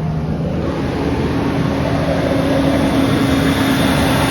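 1998 Ford Expedition's V8 engine running steadily, just revived with fresh gas after sitting about a year; its note steps up to a slightly higher, louder pitch about a second in and holds there.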